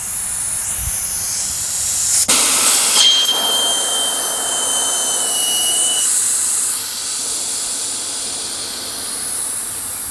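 Air hissing steadily out of a motorcycle tire as its pressure is let out, with a thin whistle joining for a few seconds in the middle, before fading near the end. The tire is being deflated because its bead has seated on one side only.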